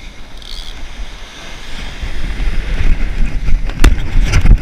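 Wind rushing over the microphone with surf behind it. About two seconds in, irregular thumps and scuffs of footsteps in beach sand join in and grow louder.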